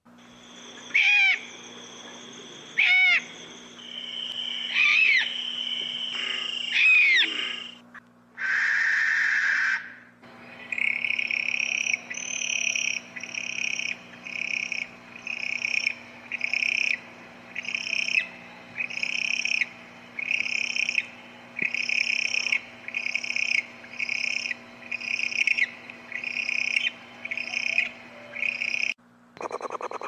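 Owl calls: four screeching whistles that rise and fall, about two seconds apart, then a hiss lasting about two seconds, then a long run of short, evenly spaced calls about one a second.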